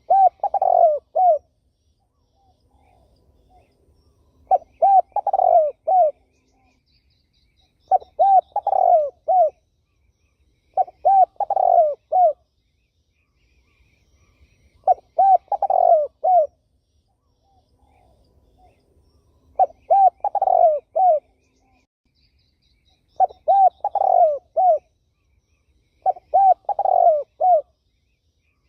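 Spotted dove (terkukur) cooing in repeated phrases of several low notes, a new phrase every three to four seconds. Faint higher chirps sound between the phrases.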